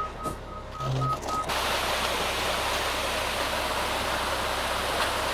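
A concrete mixer truck's reversing alarm beeps in short pulses and stops about a second and a half in. A steady rushing hiss then sets in, which is wet concrete sliding down the truck's discharge chute onto the slab.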